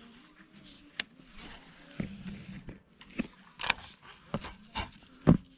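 Irregular clicks, taps and rubbing close to the microphone as hands and a sleeve handle a baitcasting rod and reel, with a duller thump near the end.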